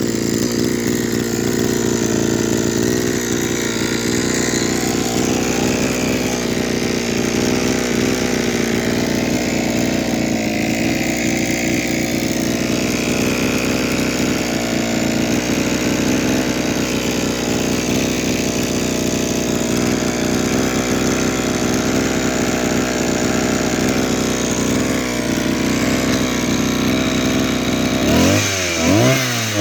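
Kioritz SRE2650G brush cutter's small two-stroke engine running steadily at idle, with the swishing 'shaa-shaa' noise the seller calls abnormal. Near the end it is revved up and dropped back in short bursts.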